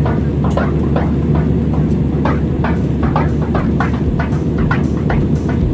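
Airliner cabin noise in cruise: a steady low roar of the engines and airflow heard from a window seat, with light irregular ticks over it about three times a second.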